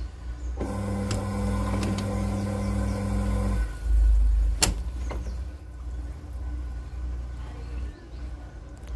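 LG TurboWonder top-load washer on its spin cycle: a low rumble of the spinning tub, with the motor humming for about three seconds before cutting out. The rumble then swells loudest and a single sharp click follows, after which the drum keeps turning with a weaker, wavering hum.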